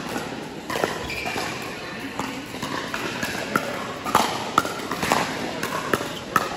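Pickleball paddles striking the hard plastic ball in rallies, a string of sharp pops that come quicker from about three and a half seconds in, mixed with pops from neighbouring courts in a large indoor hall.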